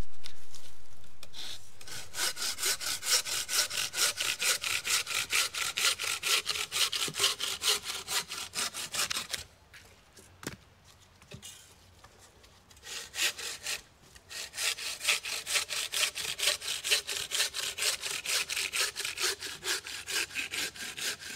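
Bow saw cutting through a green log in quick, even strokes, about four a second. The sawing stops for about three seconds in the middle, then starts again.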